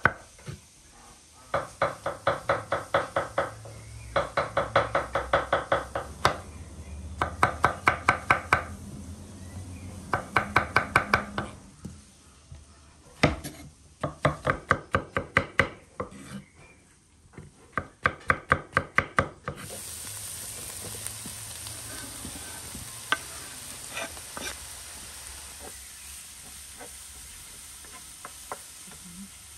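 A knife chopping food on a wooden board, in quick runs of about five strokes a second with short pauses between them. About twenty seconds in it gives way to food sizzling steadily in a frying pan over a wood fire, with a few light clicks as it is stirred.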